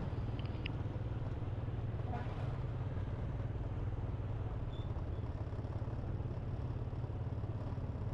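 Slow-moving city road traffic: car engines idling and creeping forward in a jam, a steady low hum.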